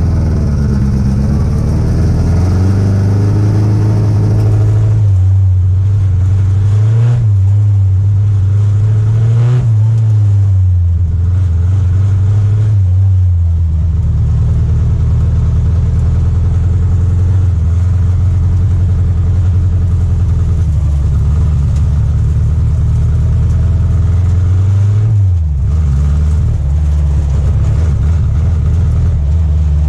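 Triumph Spitfire's four-cylinder engine at full effort in an autocross run, its pitch climbing and falling repeatedly as the car accelerates and slows between turns, with a sharp drop in revs about 25 seconds in.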